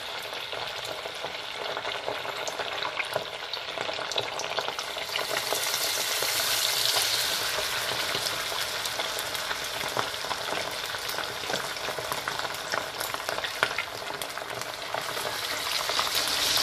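Spice-coated garfish deep-frying in hot oil in a saucepan: a steady, dense sizzle full of fine crackles, swelling louder about five seconds in and again near the end.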